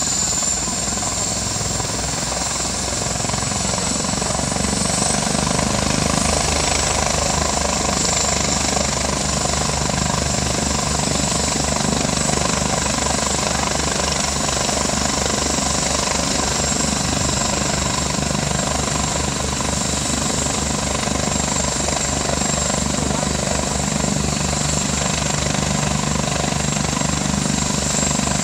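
Airbus EC-145 twin-turbine medical helicopter running on the ground: a steady high turbine whine over the fast, even beat of the turning rotor.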